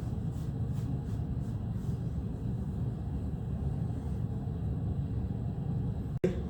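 Steady low background rumble, with a few faint soft ticks in the first two seconds; it drops out briefly near the end.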